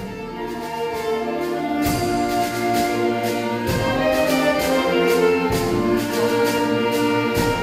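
A youth wind ensemble playing a slow piece, fading in at the start. Flutes, recorders and other winds hold chords together, with a short low stroke about every two seconds keeping the beat.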